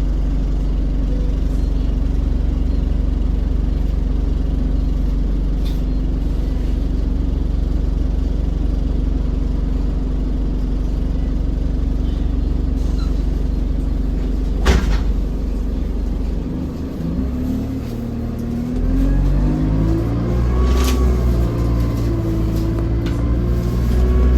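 Alexander Dennis Enviro200 bus's diesel engine idling steadily, then a single sharp clunk. The engine then pulls away, its pitch climbing in steps as it accelerates.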